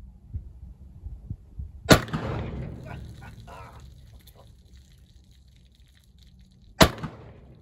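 Two shots from a Pietta-made 1858 Remington New Army .44 cap-and-ball revolver loaded with black powder, about five seconds apart, each followed by a brief echo.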